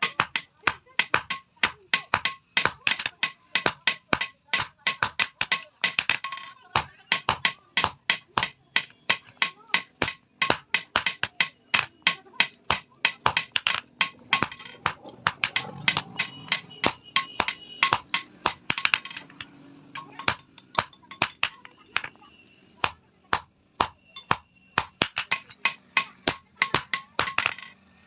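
Hammer blows on steel over an anvil, several a second, each with a bright metallic ring, as a try square is forged. The blows weaken and thin out briefly about two-thirds of the way through, then come hard again near the end.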